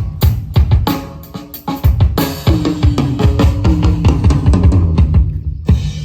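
Drum kit played in a sound check: kick drum, snare and cymbal strikes, with a dense run of rapid hits in the middle and a last loud hit near the end.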